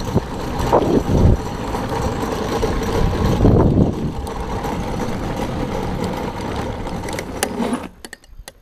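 Go-kart with its engine dead, coasting fast downhill on asphalt: a steady rumble and rattle from the hard wheels and frame. The noise drops away sharply about eight seconds in.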